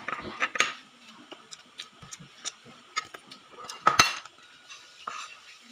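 Small scattered clicks and mouth smacks of a child chewing fried chicken, then a loud, brief crinkle of a plastic snack packet being handled about four seconds in.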